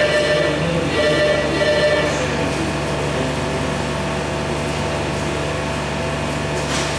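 Steady machine hum with a fixed low drone and a whine over it that fades after about two seconds.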